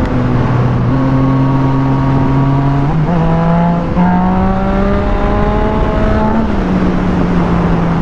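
Yamaha FZ-09 motorcycle's three-cylinder engine running at road speed. Its note rises in steps about three and four seconds in, then drops a little past six seconds.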